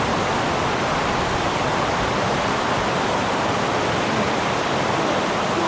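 Rushing water: a steady, even rush of fast-flowing stream water.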